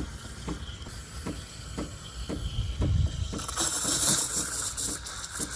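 Breville espresso machine steam wand hissing into a pitcher of milk as it is frothed. About three seconds in the hiss turns suddenly louder and harsher as air is drawn into the milk to build foam.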